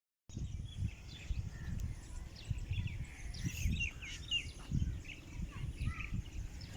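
Small birds chirping with many short, quick calls, over a low uneven rumble of wind on the microphone.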